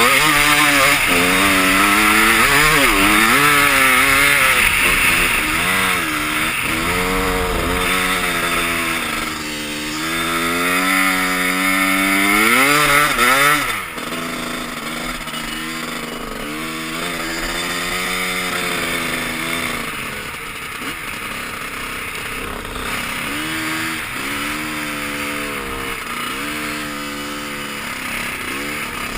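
Two-stroke dirt bike engine, a Honda CR250, revving up and down over and over as it is ridden, its pitch climbing and falling with each burst of throttle. About fourteen seconds in it drops abruptly in level and carries on quieter.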